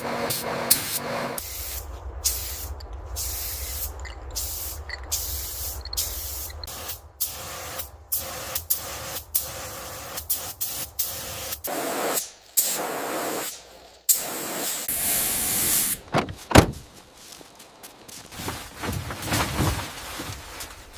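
A run of short hissing sprays, one after another at an uneven pace, over a low hum that stops about halfway through. A single sharp knock a little past the middle is the loudest sound.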